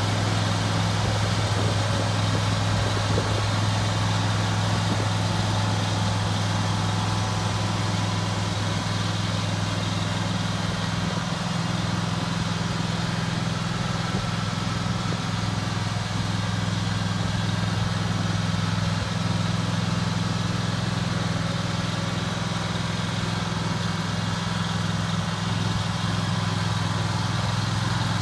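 Kubota Z726 zero-turn mower's Kawasaki V-twin engine running steadily at an even speed.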